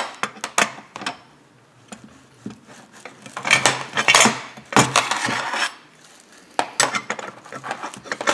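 Light metallic clinks, taps and scraping as a chainsaw crankshaft, crankcase half and combination wrench are handled against each other during engine assembly, in scattered bursts with a busier stretch in the middle.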